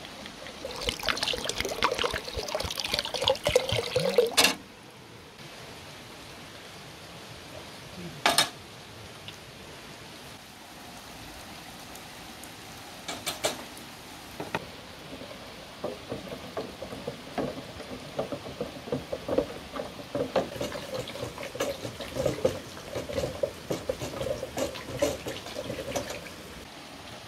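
Water poured from a clay jug into a steel bucket, cutting off suddenly about four seconds in, then a single knock a few seconds later. Later, a wooden spoon stirs in a metal pot as more water is poured in, with irregular clinks.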